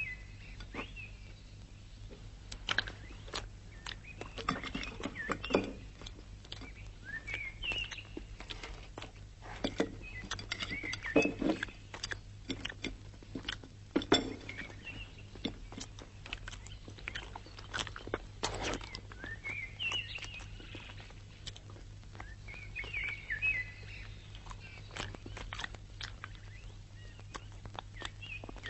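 Birds chirping now and then in short phrases over scattered sharp clicks and knocks, with a low steady hum underneath.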